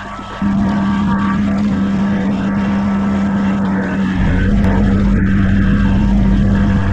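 Kubota BX23S compact tractor's three-cylinder diesel engine running as the tractor drives, a steady drone that gets louder about half a second in and deeper and heavier around four seconds in.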